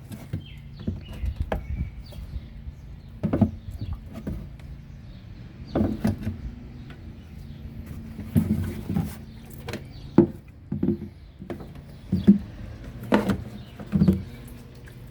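Hands working a plastic windshield washer pump and its hose into the washer fluid reservoir: irregular knocks, clicks and scrapes of plastic parts being pushed and fitted, over a faint steady hum.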